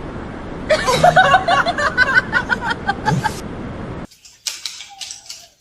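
A person laughing in quick repeated bursts over a steady background hiss, cut off abruptly about four seconds in, leaving only faint scattered sounds.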